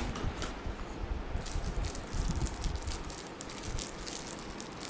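Clear plastic wrapping crinkling and rustling as it is handled, with a dense run of small sharp crackles starting about a second and a half in.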